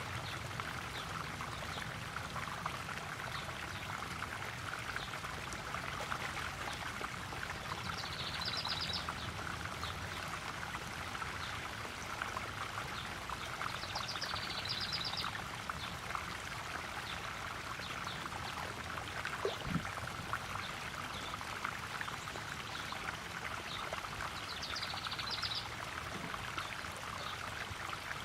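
Koi pond waterfall splashing and trickling steadily into the pond. A short, high, rapid trill comes in four times, about every six seconds.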